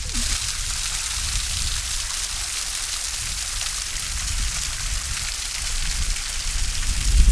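Water running and splashing down a partly frozen waterfall: a steady, even hiss. A low rumble underneath grows louder near the end.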